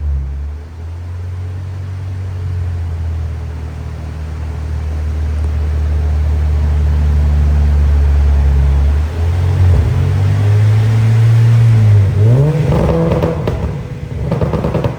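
Honda Civic Type R EP3's K20 four-cylinder engine running under load on a rolling-road dyno during a baseline power run. It holds steady at low revs, starts climbing after about nine seconds, then revs up sharply over the last few seconds.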